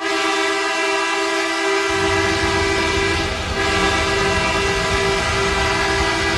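Hockey goal horn blasting one long, steady note, a deep air-horn tone with many overtones. A low rumble joins about two seconds in.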